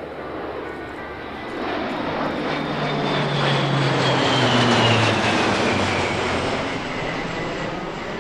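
A Lockheed MC-130J Commando II's four turboprop engines running as it passes low overhead. The sound builds to its loudest about five seconds in and then fades as the aircraft flies away. A high turbine whine and a low propeller hum both drop in pitch as it goes by.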